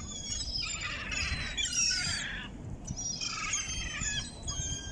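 Seagulls calling as they feed: many overlapping high-pitched cries, in one bout in the first half and another near the end.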